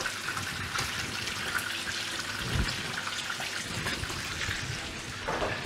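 Diced onion sizzling steadily in hot oil in a frying pan, alongside smoked pork ribs frying in a second pan.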